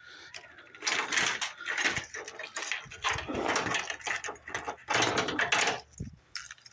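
Lincoln Town Car starter cranking in three short tries of about a second each, the engine not catching. The battery is low.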